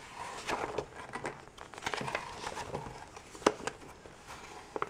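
Paper instruction booklet being opened and its pages turned, a rustling of paper, with a sharp click about three and a half seconds in and another near the end.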